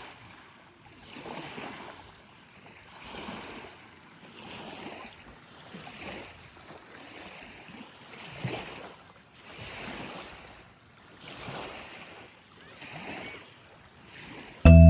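Small waves washing onto a beach, a hiss that swells and fades about every one and a half seconds.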